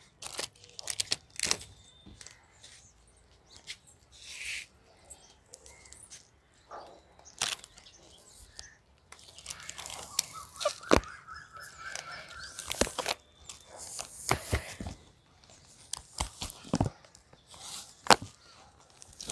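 Crinkling and rustling of yellow sticky-trap sheets and their packaging as they are handled and tied onto a plant: scattered clicks and short crackling bursts, the longest near the middle.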